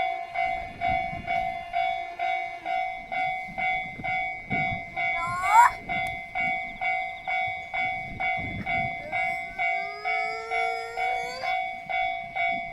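Japanese railway level-crossing alarm ringing its steady "kan-kan" at about two strokes a second, a signal that a train is approaching or passing. A train's rumble runs underneath, with a short rising tone about halfway through and a longer rising tone later.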